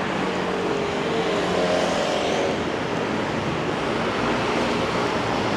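Rainy-night street noise: a steady hiss of rain and wet road, with a car passing on the wet road about two seconds in.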